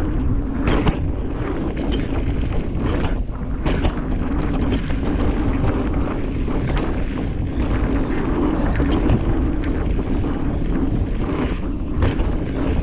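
Wind buffeting an action camera's microphone and mountain bike tyres rolling fast on packed dirt singletrack, with scattered sharp clacks and rattles from the bike over bumps.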